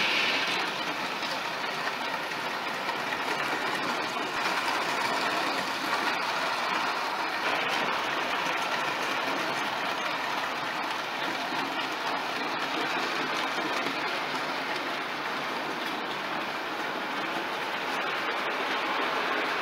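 A long rake of OO gauge model freight wagons rolling past on the track, giving a steady rattling clatter of small wheels on the rails.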